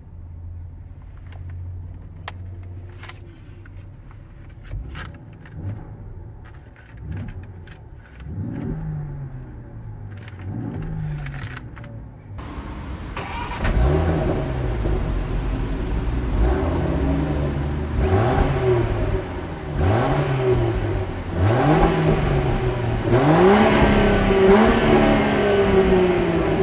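Land Rover Defender 90's 3.0-litre straight-six idling with a few small revs, then revved repeatedly in short blips that each rise and fall in pitch. The blips are louder and sharper through the second half.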